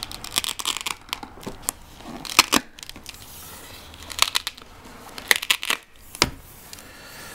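Cardboard retail box being handled and turned over: scattered crinkles, scrapes and sharp knocks.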